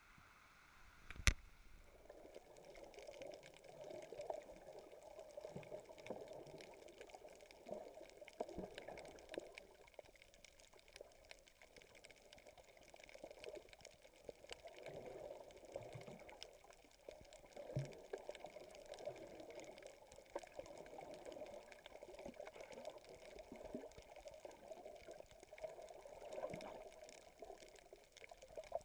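Water heard underwater through an action camera's waterproof housing: a low, muffled, uneven sloshing and gurgling, dotted with faint tiny ticks. There is one sharp click about a second in.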